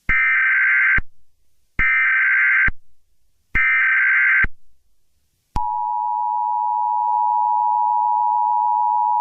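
Emergency Alert System tones: three bursts of SAME header data, each a harsh warbling screech about a second long, then the steady two-tone EAS attention signal starts about five and a half seconds in and holds. This sequence opens an emergency alert, here a tornado warning.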